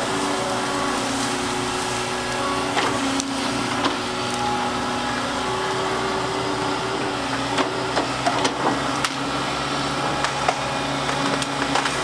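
Volvo excavator's diesel engine and hydraulics running steadily under work, with scattered sharp knocks and clatters as it handles stone, more of them in the second half.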